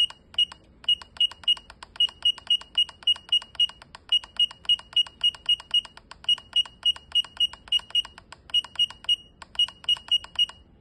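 SATLINK WS-6990 DVB-T modulator's keypad beeping: one short, high beep for each press of the down button, about three or four a second, in runs with brief pauses, as the channel list scrolls.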